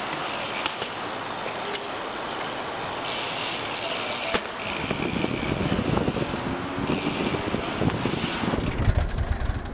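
A BMX bike being ridden: tyres rolling over hard ground and parts rattling, with scattered clicks. A heavier, uneven rumble builds in the second half.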